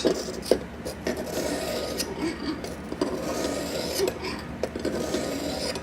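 A steel knife edge being drawn in repeated strokes across an Eze-Lap diamond sharpening hone, making a gritty rasping scrape.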